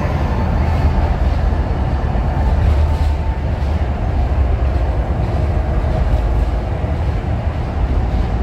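Ocean Express funicular train running through its tunnel, heard from inside the passenger car as a steady low rumble.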